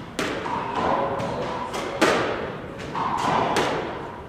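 Squash ball being struck by rackets and hitting the court walls during a cooperative drill rally: a run of sharp knocks about half a second to a second apart, the loudest about two seconds in, each ringing briefly in the court.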